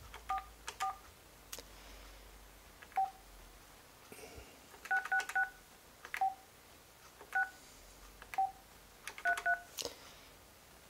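Panasonic KX-NT553 IP phone keypad beeping under key presses: about eleven short two-note key tones with faint button clicks, irregularly spaced and some in quick runs of three, as letters are typed in by pressing the number keys repeatedly.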